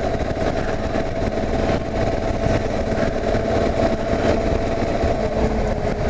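Kawasaki KLR 650's single-cylinder engine running steadily as the motorcycle cruises along, with a constant hum and low rumble.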